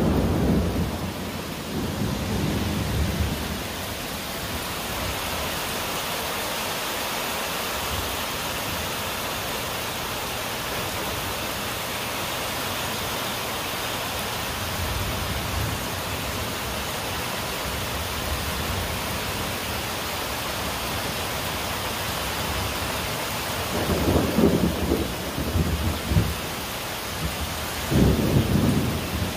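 Steady rain falling during a thunderstorm, with low rumbles of thunder in the first few seconds, faintly around the middle, and louder twice near the end.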